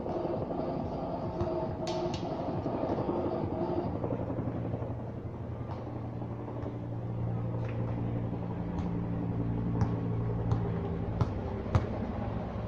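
Background music fades out in the first few seconds and leaves a steady low hum. Near the end a basketball bounces sharply on the concrete court four times, about two-thirds of a second apart.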